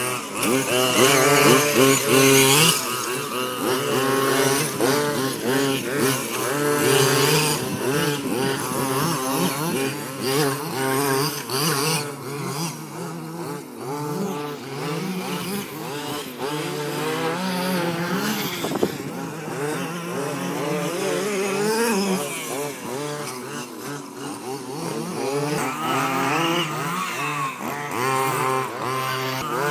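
Small two-stroke petrol engines of 1/5-scale RC off-road cars (HPI Baja 5SC and MCD) revving up and down again and again, the pitch rising and falling with the throttle. Loudest in the first couple of seconds.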